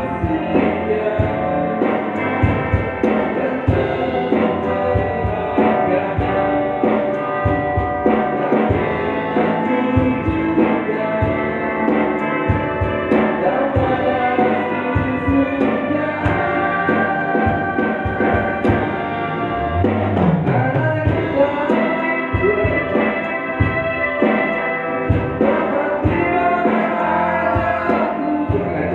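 A live band playing a song, with an electric bass guitar, drums and other instruments and a voice singing.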